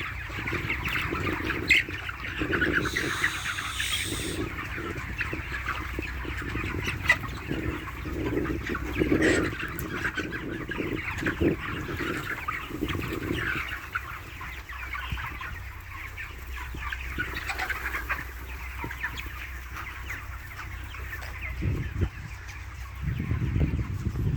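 A shed full of chickens clucking and calling all at once, a continuous dense chatter of many overlapping birds.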